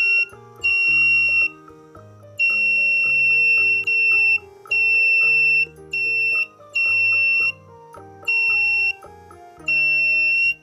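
Electronic buzzer of a homemade BC547 and photodiode fire-alarm circuit sounding a steady high beep that switches on and off irregularly about eight times, in stretches from a fraction of a second to about a second and a half long, over background music.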